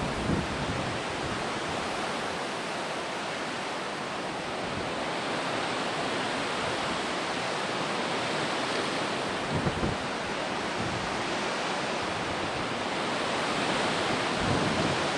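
Steady wind rushing across the camera microphone, with a brief low bump about ten seconds in.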